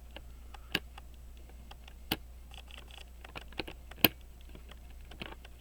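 Light, irregular clicks and taps of small hand tools against the metal parts of a pocket watch movement during assembly, with three sharper clicks: just under a second in, about two seconds in and about four seconds in.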